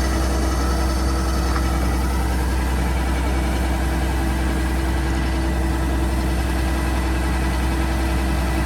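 An engine running steadily at an even speed, with a constant low rumble and hum.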